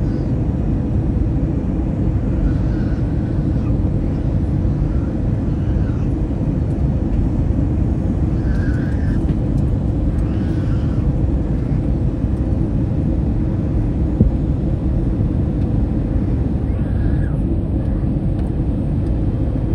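Steady roar of an airliner's cabin noise, engines and airflow heard from inside the cabin, with a faint constant hum tone, as the plane descends on approach to land.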